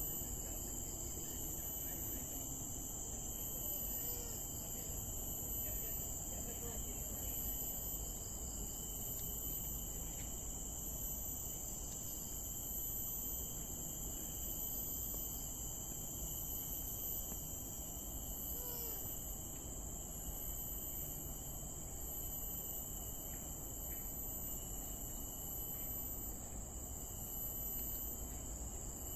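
Steady chorus of forest insects, several continuous high-pitched drones at different pitches layered together, with a few faint short bird chirps now and then.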